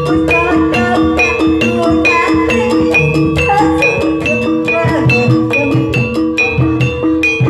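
Javanese gamelan music for ebeg (kuda lumping) dance: a repeating melody of struck metal keyed instruments in a fast, even rhythm, over a low drum.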